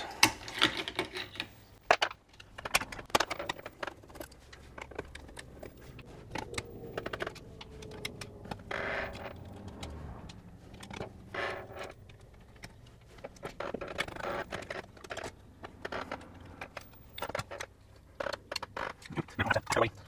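Scattered small clicks, taps and rattles of hands working the battery section of a Yale smart lock's door handle, pulling out the plastic battery cover and the AA battery pack.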